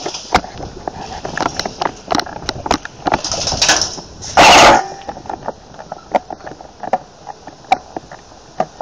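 Airsoft gunfire during a skirmish game: scattered sharp pops at an irregular pace, some close and loud, others fainter. About four and a half seconds in, a loud burst of noise lasts about half a second.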